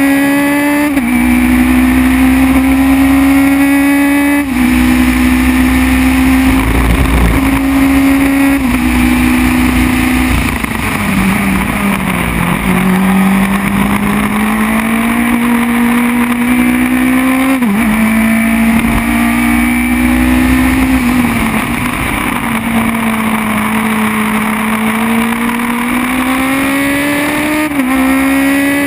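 Onboard sound of a Formula BMW single-seater's 1.2-litre four-cylinder motorcycle-derived engine at racing speed. The engine note climbs under acceleration and drops sharply at each upshift, several times. It falls lowest about halfway through, through a slow corner, then builds up again.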